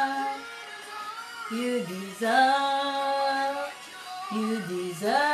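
Worship song being sung: a voice holds a few long, drawn-out notes that slide up or down into pitch, with short breaks between phrases.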